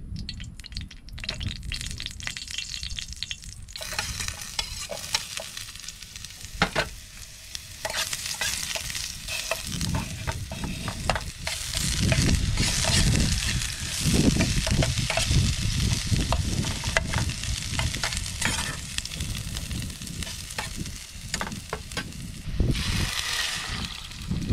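Sliced red onion and garlic sizzling in oil in a nonstick frying pan on a portable gas stove, starting about four seconds in, while a metal spoon stirs them with repeated clicks and scrapes against the pan. The sizzle briefly gets louder near the end.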